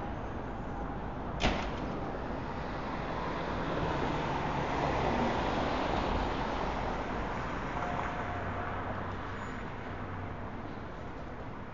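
City street traffic noise, swelling as a vehicle passes about halfway through and then easing off. A single sharp click comes about a second and a half in.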